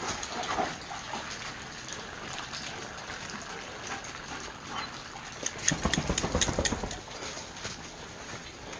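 A dog moving close by, with water dripping from a sandstone rock overhang. A short flurry of knocks and rustling comes about five and a half seconds in.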